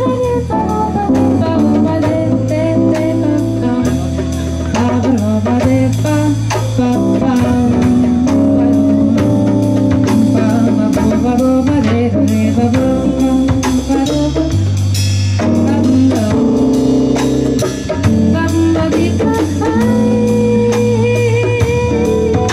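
Live jazz band playing: drum kit keeping a steady beat under electric bass, electric keyboard and archtop guitar.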